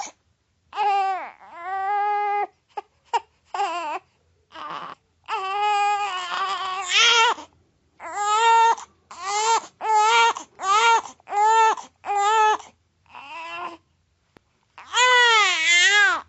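Baby crying in repeated high-pitched wails with short gasping pauses between them: a quick run of short cries in the middle, then one long wavering wail near the end.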